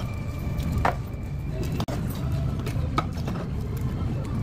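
Restaurant room noise: a steady low rumble, with two light clicks, one about a second in and one near three seconds.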